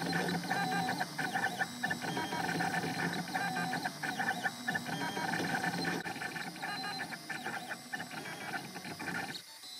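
FDM 3D printer printing a small plastic part (a replacement whistle piece for a singing-fish toy): its stepper motors whine in short tones that keep changing pitch as the print head and bed move back and forth, over a steady hiss. The sound cuts off suddenly near the end.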